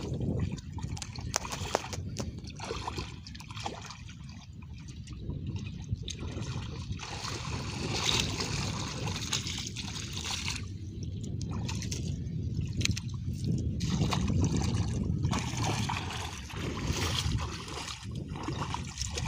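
Shallow muddy water sloshing and trickling as hands and bare feet move through it, with brief sharper splashes now and then.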